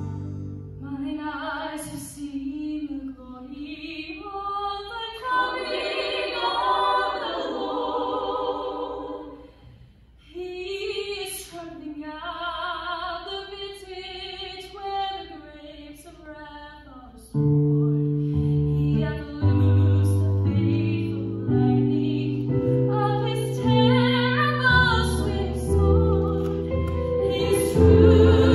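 A solo female voice sings a slow melody on its own, breaking off briefly about a third of the way through. Held low chords then come in beneath her and carry on to the end.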